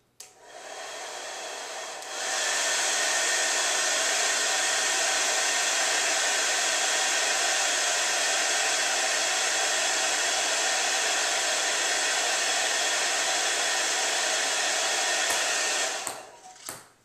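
Hair dryer with a cut-off 2-liter bottle top as its nozzle, switched on at a low setting and stepped up to high after about two seconds. It blows steadily, then is switched off near the end and winds down. A few light ticks follow as it dies away, the ping-pong ball bouncing.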